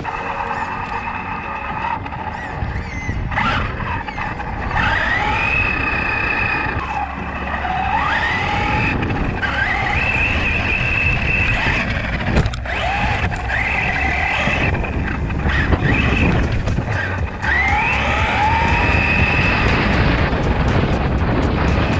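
Reely New1 RC car's motor whining, pitching up and holding high again and again, about five bursts of acceleration, over steady low rumble from the tyres and wind.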